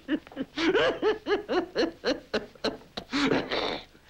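A man laughing loudly in a rapid, rhythmic run of "ha-ha" bursts, pausing briefly before a last few laughs.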